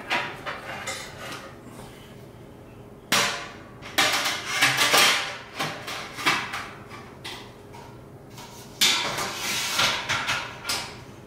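Stainless steel grain basket and kettle of an Anvil Foundry 10.5 brewing system knocking and scraping together as the basket is lifted out and set back in. The metal clatters come in several short bursts.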